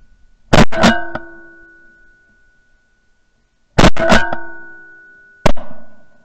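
Loud shotgun blasts fired at flying ducks, heard from the barrel-mounted camera: two quick pairs of shots about three seconds apart, then a fifth near the end. Each shot is followed by a metallic ringing that fades over a second or so.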